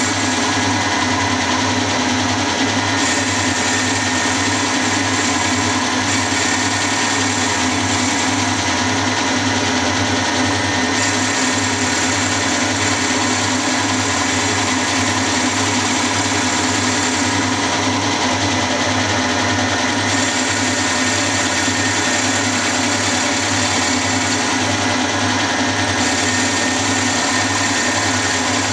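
Milling machine running steadily as an end mill cuts a 3/8-inch bore into a model lathe tailstock casting, a continuous mechanical hum with an even low pulse.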